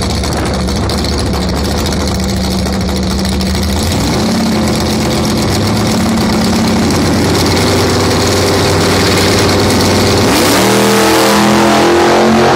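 Station-wagon drag car's engine holding a steady idle at the starting line, its note stepping up slightly about four seconds in. Near the end it launches: the engine revs and its pitch climbs sharply as the car accelerates away.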